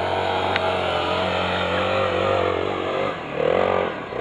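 Honda XR 250 Tornado trail bike's single-cylinder four-stroke engine running under throttle, its pitch rising and falling, with a louder rev about three and a half seconds in.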